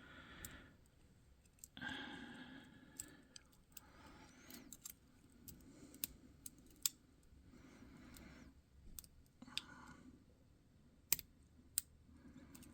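Lock pick and tension wrench working inside a Paclock 90A Pro padlock: faint, scattered sharp metallic clicks with softer scraping in between as the pins are raked and probed.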